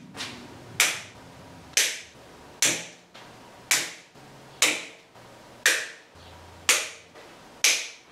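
A series of sharp, loud cracks, about one a second at a slightly uneven pace, each with a short ringing tail.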